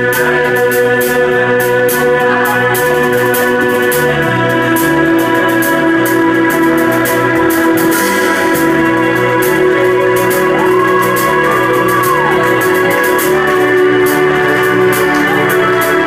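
Live band music led by sustained organ chords, over a bass line and steady drums and cymbals.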